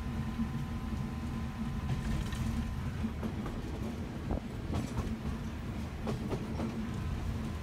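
PNR train 917 running along the track: a steady low rumble and hum, with a run of short clicks and knocks partway through as the wheels pass over rail joints.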